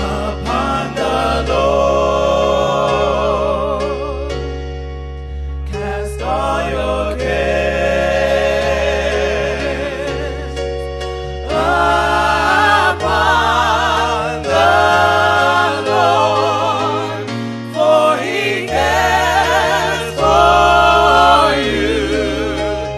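Gospel music: voices singing with vibrato over electric keyboard chords and a steady bass, swelling louder about halfway through.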